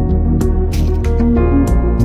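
Background music: sustained instrumental tones over a heavy bass line with a steady beat.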